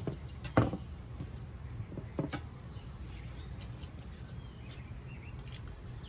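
Knocks and taps from handling the fish and the fillet knife on a cutting board while filleting a mahi-mahi: one sharp knock about half a second in, a lighter one about two seconds in, and a few soft taps, over a steady low background rumble.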